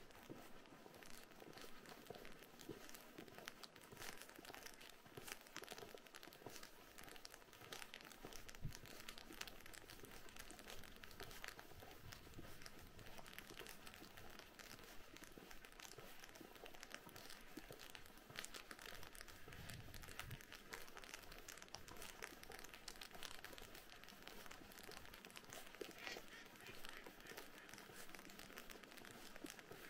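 Faint, dense crinkling and fine ticking of freezing rain and ice pellets landing, mixed with footsteps crunching on icy snow.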